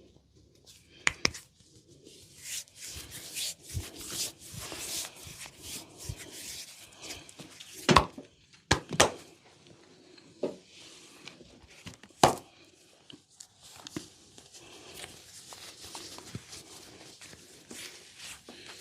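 Hands rubbing and scrubbing over hair and skin during a head and upper-body massage, a steady rustling, with several sharp clicks, the loudest about 8 and 12 seconds in.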